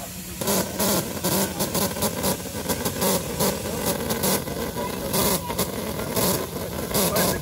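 Miniature railway train running: a steady engine-like rumble that starts abruptly about half a second in, overlaid with repeated sharp hissing bursts, two or three a second.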